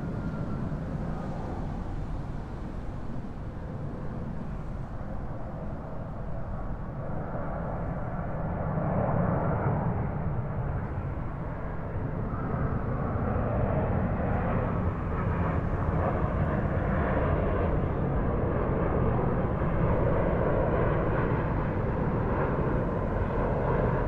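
A low-flying airplane passing overhead, its engine noise growing louder about eight seconds in and then staying loud, over a steady low background rumble.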